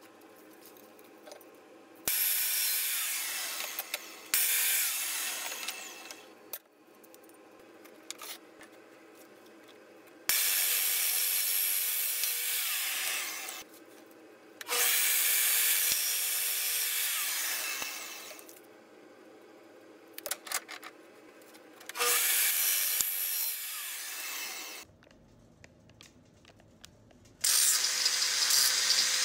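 A metal cut-off saw cutting steel flat bar, about five separate cuts of a few seconds each, several ending in a falling whine as the blade spins down. Near the end an angle grinder with a flap disc starts grinding the cut edges.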